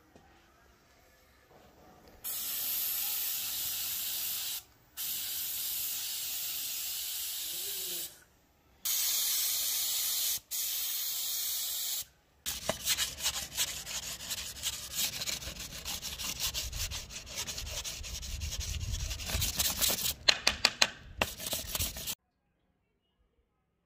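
Aerosol spray-paint can hissing in four bursts of a few seconds each, coating gun metal parts black. After that comes about ten seconds of rough, irregular rubbing and scraping, which stops suddenly near the end.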